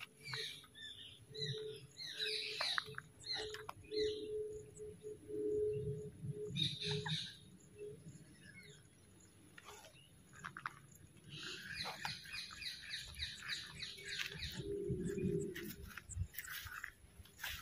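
Birds chirping and calling: short falling chirps through the first few seconds and again about seven seconds in, then a quick run of repeated notes in the second half.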